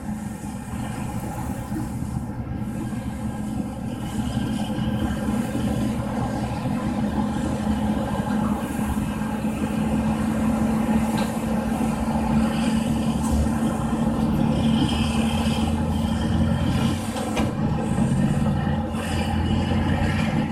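Heavy diesel engines of a Caterpillar D11 bulldozer and a wheel tractor scraper working under load as the dozer push-loads the scraper. It is a steady engine drone that grows louder over the first half.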